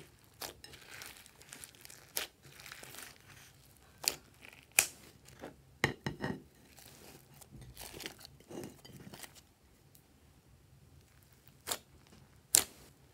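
Hands kneading and stretching thick, glossy slime mixed with clay, a soft sticky squishing and crackling broken by about seven sharp pops as air pockets in the slime burst.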